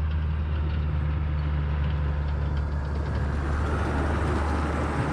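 Tractor engine running steadily at a low, even speed, a loud deep hum.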